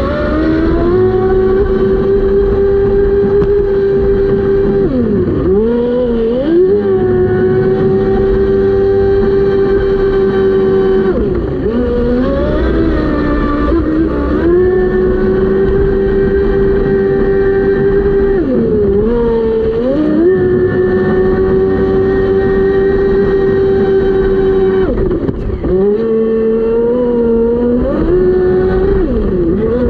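Electric motor of a 6S LiPo-powered Inception RC speedboat whining at high speed, with water and wind noise under it. Several times the pitch drops and then climbs back as the throttle is eased and reopened.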